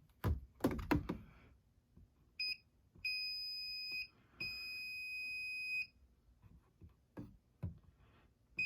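Circuit breaker finder receiver beeping at the breaker panel: a short chirp, then two long, high-pitched steady beeps of about a second each, as it picks up the transmitter's signal on a breaker. A few light handling knocks come before the beeps and near the end.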